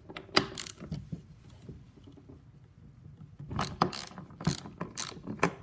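Hand ratchet clicking as it loosens the bar holder nut on a chainsaw, in short runs of sharp clicks: a few near the start, a denser run in the second half.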